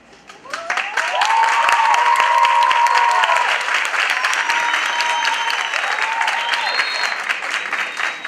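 Theatre audience clapping loudly with cheering voices and a few whistles. It swells in about half a second in and stays strong throughout.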